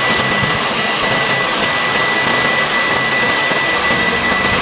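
Desoldering station running steadily to remove an IC from a radio's circuit board: an even rush of air with a thin, steady high whine over it.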